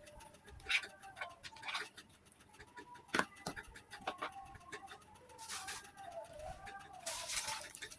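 Spoon clicking against a plate amid eating sounds, with a bird calling faintly in the background.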